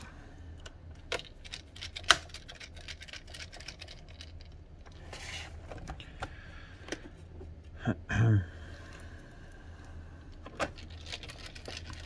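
Scattered light clicks and ticks as a laptop's plastic bottom cover is screwed down and pressed into place. The cover's clips snap in with soft clicks, which is the sign that it is seating properly and not cracking.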